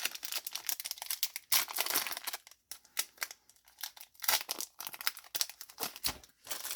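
Foil booster pack wrapper crinkling as it is handled and torn open by hand, a run of irregular crackles.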